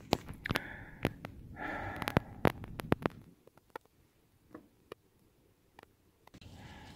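A person sniffing and breathing in short breaths, mixed with sharp clicks and knocks in the first three seconds, then near-quiet with a few faint ticks.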